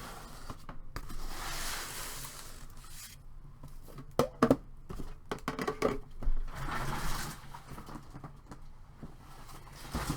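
Plastic packaging being torn open and crinkled by hand: stretches of rustling, with a few sharp clicks and knocks around the middle.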